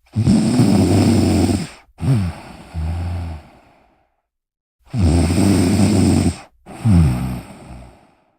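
A person snoring through two breath cycles. Each is a loud snore of about a second and a half, then a quieter snore that falls in pitch and fades, with short silent pauses between breaths.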